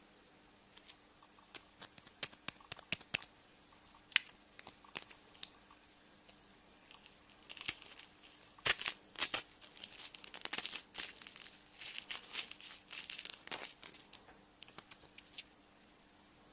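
Kinder egg wrapper being torn open and crinkled by hand. Scattered small crackles and clicks at first, then a dense run of crinkling and tearing in the second half, thinning out again near the end.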